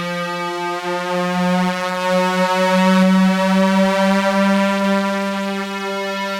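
Electronic music: a single long synthesizer note with many overtones, its pitch wavering slightly and swelling a little in loudness about halfway through.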